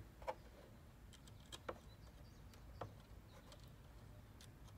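Near silence with a few faint, scattered clicks and handling sounds as wire connectors are pushed onto the terminals on the back of a tow mirror glass.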